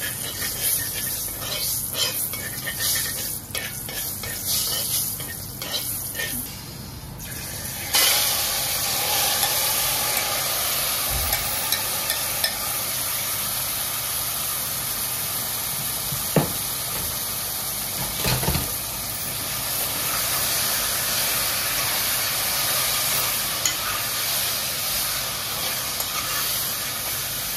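Curry powder frying in hot oil in a pot, a spoon stirring it with light clicks: the Jamaican step of 'burning' the curry before the meat goes in. About eight seconds in, a louder steady sizzle sets in and holds, with the seasoned chicken frying in the pot and the spoon now and then knocking against it.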